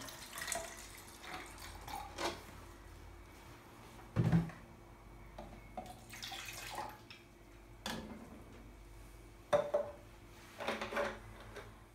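Liquid poured from a plastic jug into a small graduated cylinder, then poured from the cylinder into a plastic measuring jug, as stop bath concentrate is diluted with water. Plastic vessels and caps knock on the worktop, a loud knock about four seconds in and several lighter clicks near the end.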